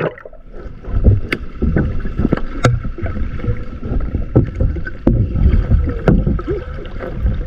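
Muffled sound heard underwater beside a fishing boat's hull and a hanging gill net: a steady low rumble of moving water with scattered sharp clicks and knocks and a faint steady whine. The sound turns suddenly muffled at the start as it goes below the surface.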